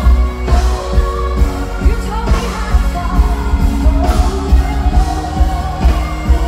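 A woman singing a pop song live into a microphone, with amplified backing music and a heavy bass underneath.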